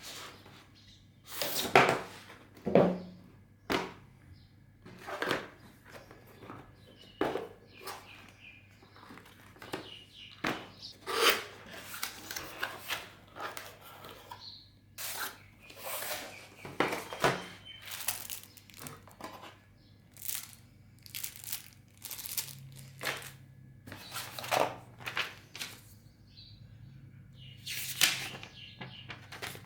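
Packaging being handled and opened: irregular crinkling and tearing of wrapping, with the occasional thunk of the box.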